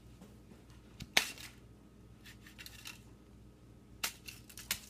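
Small plastic Kinder Surprise toy pieces clicking and tapping against each other and the table: one sharp click about a second in, the loudest, then several quicker clicks near the end.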